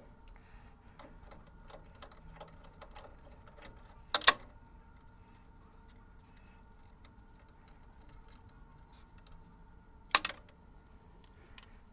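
Light clicks and rattles of a cable-carrier wire track and metal machine parts being handled, with two sharp clacks, one about four seconds in and one near ten seconds.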